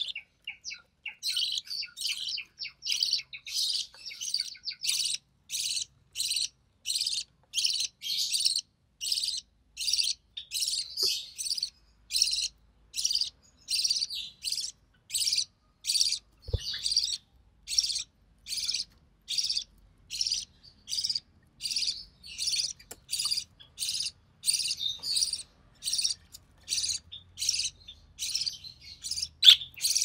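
Recessive pied budgerigar chick giving a steady, even run of short, high begging cheeps, about one and a half to two a second. A single soft knock comes about halfway through.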